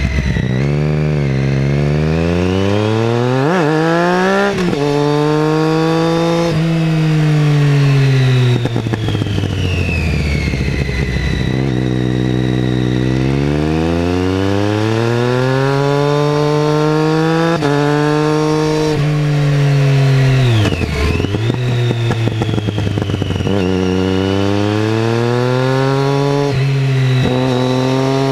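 Triumph Street Triple 675R's 675 cc inline-three through a MASS aftermarket exhaust, heard from the rider's seat: the revs climb hard with quick, clean quickshifter upshifts cutting in without a pause, then fall away on the overrun into the next bend, several times over.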